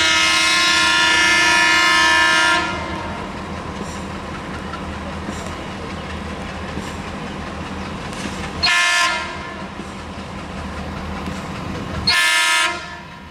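ALCo WDG3A diesel locomotive sounding its horn as it approaches: a long blast of about three seconds at the start, then two short blasts about nine and twelve seconds in. Between the blasts, the steady running noise of the approaching train.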